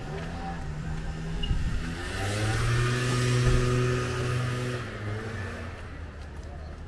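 A motor vehicle drives past on the street. Its engine hum swells to loudest about halfway through, then fades away about five seconds in.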